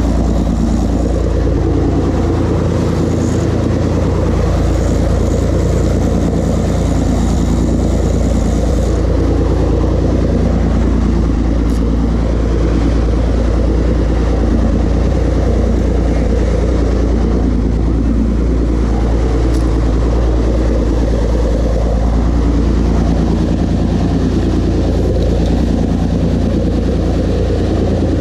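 A sportfishing boat's engine running steadily under way, a constant low drone with wind and water hiss over it; the hiss eases about nine seconds in.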